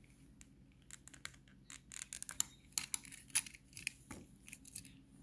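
Plastic case of a Honda remote key fob being pried apart: a run of small sharp plastic clicks and cracks, starting about a second in and thickest in the middle, as the shell snaps open.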